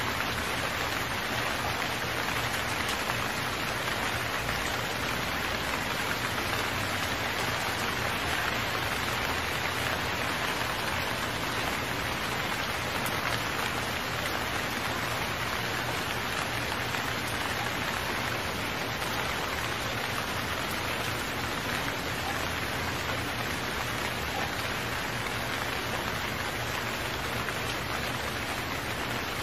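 Heavy rain falling steadily, an even hiss of downpour that neither builds nor eases.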